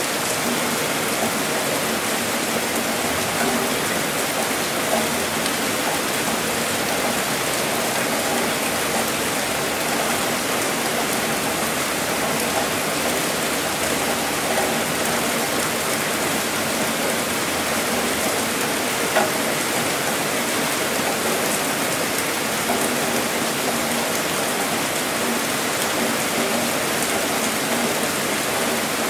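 Heavy rain falling steadily, an even hiss of water with a few brief louder spots.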